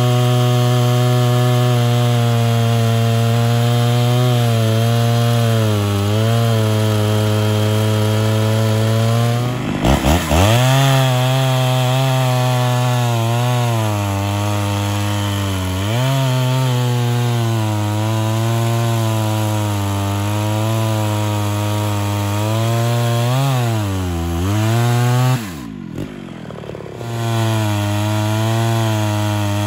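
Ported Homelite Super XL Auto two-stroke chainsaw running at full throttle, ripping lengthwise down a firewood round to split it, throwing long chips. Its engine pitch dips under load several times, and about four-fifths of the way through it drops back for a second or so before revving up and cutting again.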